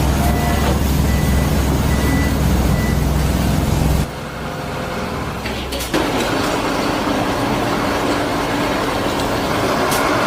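Heavy machinery engine running with a steady low rumble, the sound changing abruptly about four seconds in and again near six seconds.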